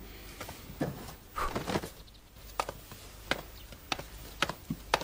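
Light, sharp knocks on wood, spaced roughly half a second to a second apart, with a soft rustle in the first two seconds.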